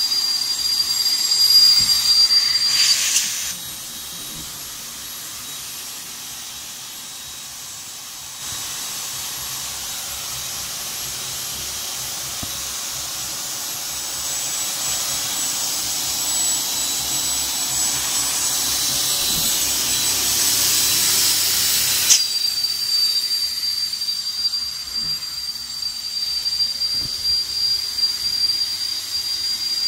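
Electric air pump running and blowing air through a hose to inflate an inflatable boat: a steady high whine with rushing air. It drops quieter about 3 seconds in, a hiss then builds gradually louder, and the steady whine cuts back in abruptly about two-thirds of the way through.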